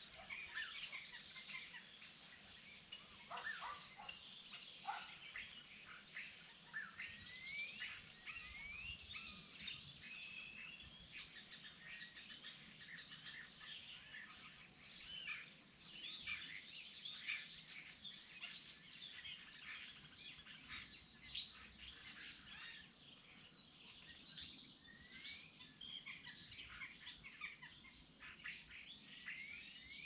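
Several songbirds singing and chirping over one another in short trills and whistles, with a faint steady high trill of crickets underneath.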